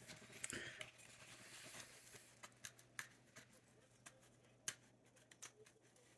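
Faint scraping and rubbing as old, brittle rubber-foot residue is cleaned off the metal base of a Remington portable typewriter, a scratchy rubbing in the first couple of seconds, then scattered light clicks and ticks.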